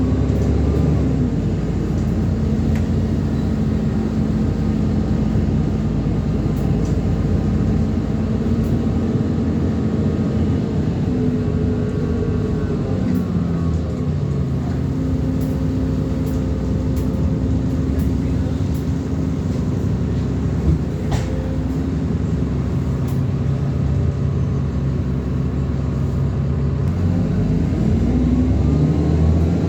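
ADL Enviro400 Trident double-decker bus engine and drivetrain heard on board while driving. The engine note holds steady, shifts in pitch partway through as the bus changes speed or gear, then climbs again near the end. A single sharp click comes about two-thirds of the way in.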